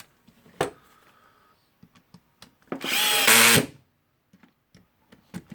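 Electric screwdriver running for about a second as it drives in a screw holding the motor field of a Makita HR2450 rotary hammer, stopping abruptly; a light click comes shortly before it.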